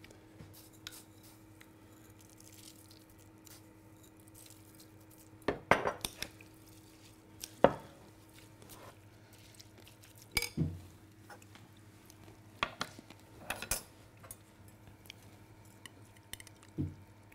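Metal serving spoon clinking and scraping against a glass bowl while a vegetable salad is tossed, in scattered knocks a few seconds apart. A faint steady low hum lies underneath.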